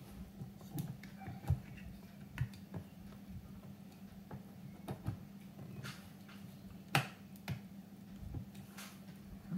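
Scattered small clicks and taps of a Hornby 9F OO-gauge model locomotive's body and chassis being handled and pressed together, the sharpest about 7 seconds in, over a steady low hum.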